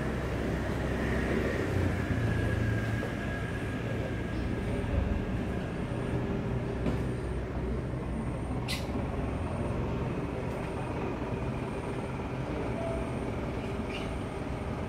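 Steady low engine rumble from a vehicle, with a short sharp hiss about nine seconds in.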